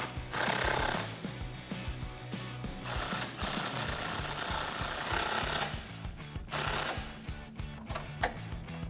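Cordless power driver spinning a socket to tighten the side-step bracket bolts, running in several bursts with the longest about two seconds. A few ratchet-wrench clicks follow near the end.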